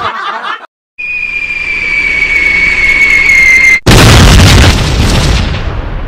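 Cartoon explosion sound effect: a steady high whistle, sinking slightly in pitch for about three seconds, then a sudden loud boom that slowly fades.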